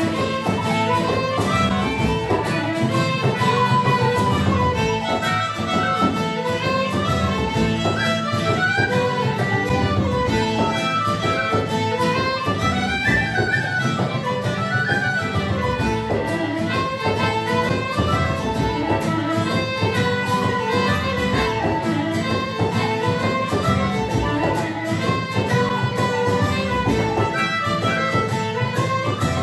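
Live Celtic folk session: fiddle and tin whistles playing a tune together over a plucked string accompaniment, the melody moving quickly from note to note.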